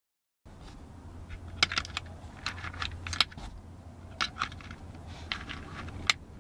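.303 cartridges being pushed one by one into a Lewis gun drum magazine: sharp metallic clicks and clinks at an irregular pace, over a low steady hum. The sound starts about half a second in.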